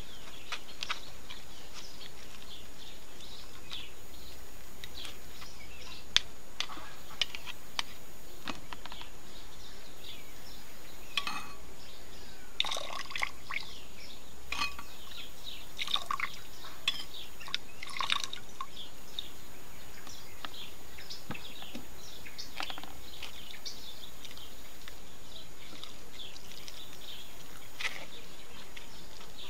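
Hand-squeezed cucumber juice dripping and trickling into a glass in scattered short splashes, with small clicks against the glass, over a steady background hiss.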